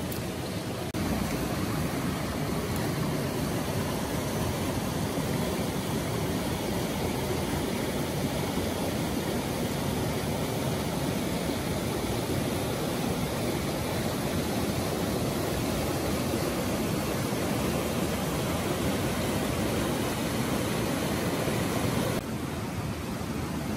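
Water of a rocky forest creek rushing over stones, a steady even noise that steps up about a second in and drops a little near the end.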